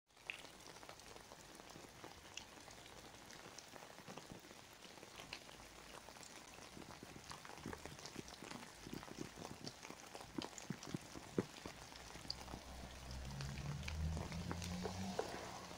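Rain falling, a steady hiss with many scattered single drop hits. From about twelve seconds in, a low rumble rises underneath.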